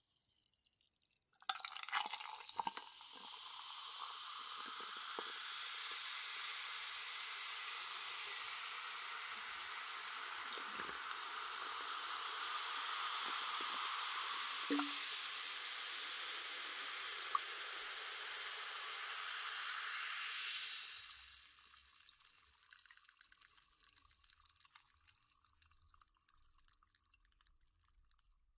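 Carbonated soda poured into a glass, a steady fizzing pour with small pops that begins about a second and a half in and rises in pitch as the glass fills. The pour stops about two-thirds of the way through, leaving the bubbles crackling more faintly and dying away.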